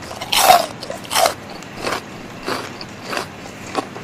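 Crunching bites into a piece of crispy fried chicken neck: two loud crunches in the first second and a half, then softer crunching chews about every half second.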